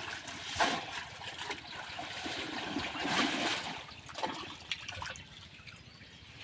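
Shallow pond water splashing and sloshing as a person wades through it and plunges a conical bamboo polo fish trap down into it. Louder splashes come about half a second and three seconds in, and it grows quieter after about four seconds.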